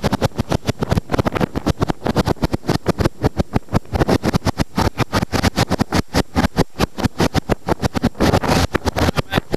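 Fast rescue jet boat running at speed on open water, its engine and spray noise chopped by wind buffeting the microphone in rapid, even pulses several times a second.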